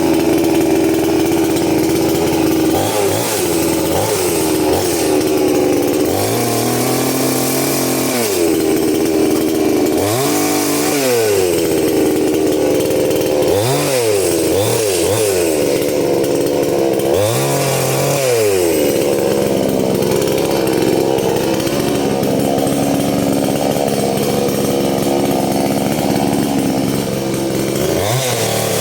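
Off-road 4x4 engine running hard, revving up and back down again and again, each rev rising and falling over about a second, between stretches of steady high running.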